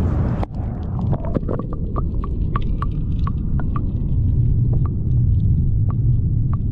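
Action camera plunged underwater: the open-air sound cuts off about half a second in, giving way to a muffled underwater rumble with scattered sharp clicks, a few each second.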